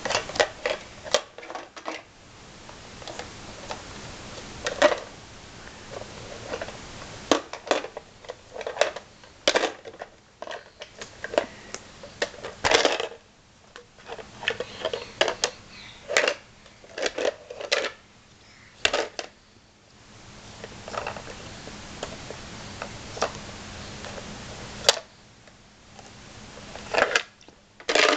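Small plastic shape blocks clattering as they are dropped into and knocked against a plastic shape-sorter bucket: irregular sharp clicks and knocks, several in quick clusters.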